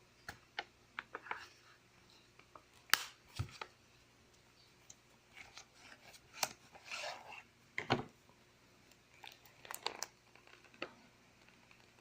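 A power bank's retail box and packaging being opened and handled by hand: scattered small clicks, taps and rustles, with a longer rustle about seven seconds in.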